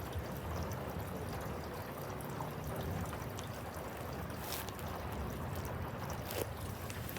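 Steady thunderstorm rain with pouring, trickling runoff water, and two sharp drip ticks in the second half.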